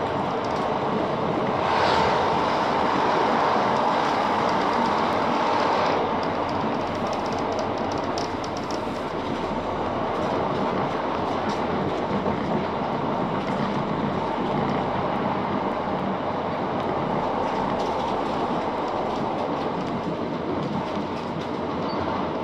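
Great Western Railway Class 165 diesel multiple unit running along the line, heard from inside the carriage: a steady rumble and rush of wheels on rail. It is louder for a few seconds near the start, with faint rail clicks later on.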